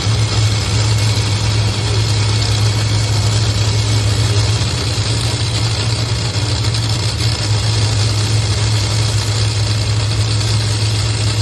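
Supercharged, nitromethane-fuelled Top Fuel dragster V8 running at a steady idle during an engine warm-up, loud and unchanging with no revs.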